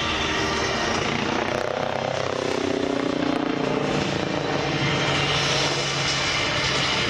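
MBB Bo 105 helicopter flying aerobatics, its rotor and twin turboshaft engines running loud and steady. About two seconds in the pitch drops as it passes by, then holds at a lower hum.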